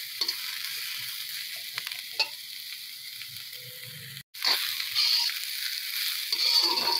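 Shredded cabbage, carrot and capsicum sizzling in hot oil in an iron kadhai, stirred and tossed with a perforated steel spatula that scrapes against the pan. The sound cuts out for an instant a little over four seconds in, then the stir-frying comes back louder.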